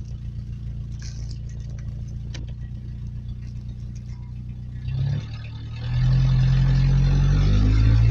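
Truck engine heard from inside the cab, running with a steady low hum. About six seconds in it gets much louder, and its pitch climbs as the truck accelerates.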